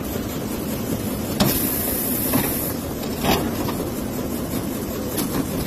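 High-speed automatic roll bag cutting machine running, a steady mechanical clatter with a sharp knock every one to two seconds and a short high hiss about a second and a half in.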